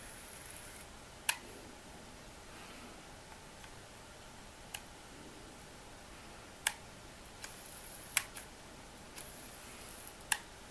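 Canon PowerShot G9 compact camera being handled and operated: five sharp clicks a few seconds apart, with brief faint high-pitched whirs between some of them.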